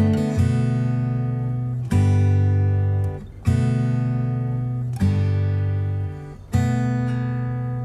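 Background music: acoustic guitar strumming chords, a fresh strum about every one and a half seconds, each ringing and fading before the next.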